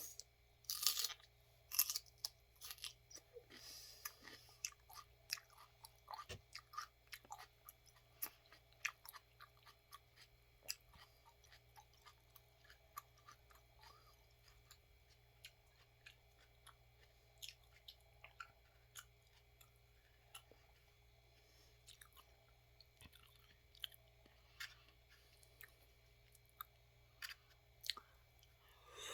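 A person chewing crisp raw celery up close: a run of sharp crunches, the loudest in the first two seconds, then many smaller crunches.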